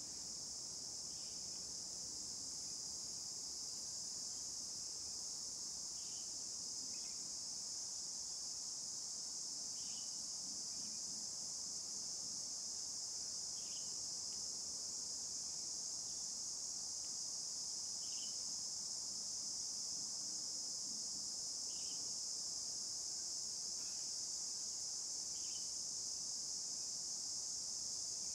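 Steady, high-pitched chorus of insects such as crickets, with faint short chirps every few seconds.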